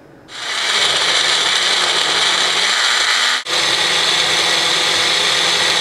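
Personal blender's motor running at full speed, chopping onions, garlic, ginger and green chili in a little water into a smooth paste. It starts a moment in, cuts out for an instant about three and a half seconds in, then runs on steadily.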